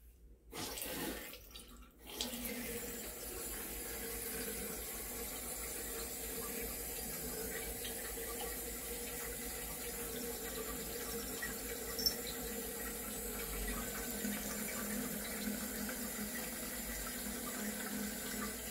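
Bathroom sink tap running, water pouring into the basin. It comes on about half a second in, breaks off briefly, then runs steadily.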